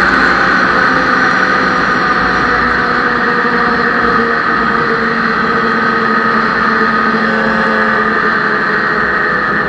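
Ski-Doo snowmobile engine running at a steady cruising speed, heard from the rider's seat while the sled travels along a snowy trail; the engine note holds steady with no revving.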